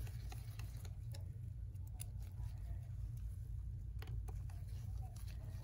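Faint, scattered clicks of a small precision screwdriver driving screws into a laptop's metal display hinge, over a steady low hum.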